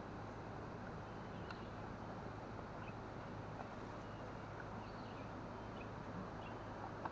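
Steady outdoor background hiss with a low hum, and a few faint, short bird chirps scattered through it.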